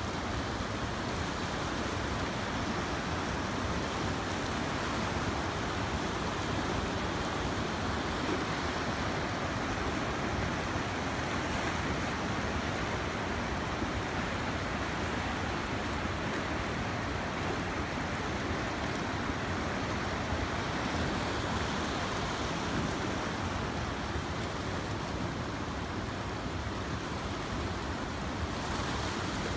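The Chandrabhaga (Chenab) River rushing past a stony bank: a steady, unbroken sound of fast-flowing water.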